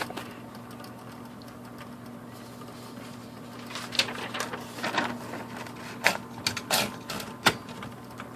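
Smith Corona Coronet Automatic 12 electric typewriter switched on, its motor running with a steady low hum. From about four seconds in come scattered sharp clicks and clacks of the typewriter's mechanism being worked.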